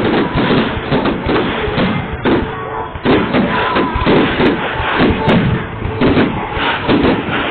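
Fireworks going off in a rapid, continuous run of booms and thuds.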